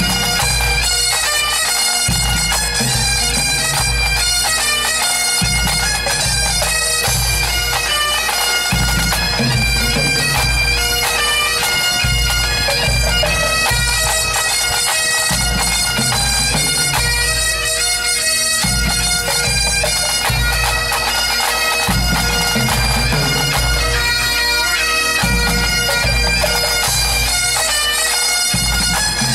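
A Breton bagad playing: bombardes and bagpipes carrying the melody over a steady pipe drone, with snare and bass drums beating along.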